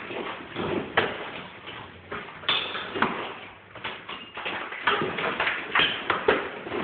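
Claw hammer and crowbar striking and prying at a plaster-and-lath wall: irregular sharp knocks and cracks as plaster breaks off the wooden lath.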